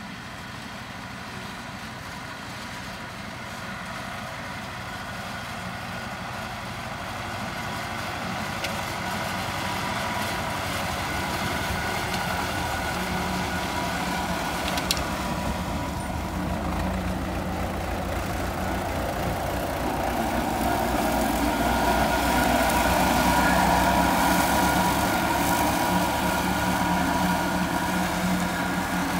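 Tractor engine running steadily, growing louder over the first twenty seconds or so, then easing off slightly. A single sharp click sounds about halfway through.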